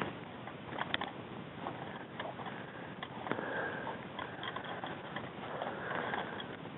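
Rustling and scuffing of a person moving over dry pine needles and rocks, with scattered short clicks.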